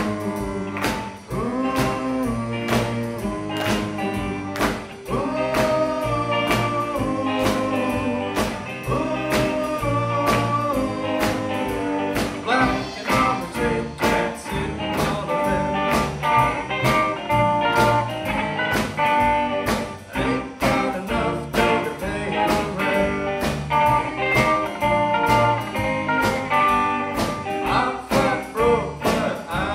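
Live rockabilly band playing with electric guitars, upright bass, drum kit and saxophones over a steady drum beat.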